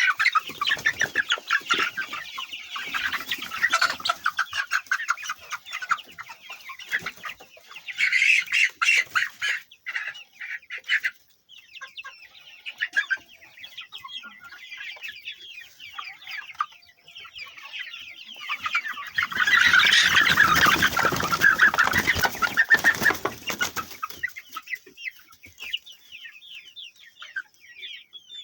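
A large flock of chickens clucking and calling all together, a dense steady chatter. It swells into louder bursts of commotion near the start, about eight seconds in, and again for several seconds past the middle.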